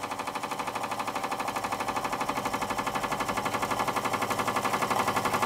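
Scratch-built model overtype steam engine running steadily on its gas-fired boiler, with a rapid, even beat of about seven a second that grows slowly louder.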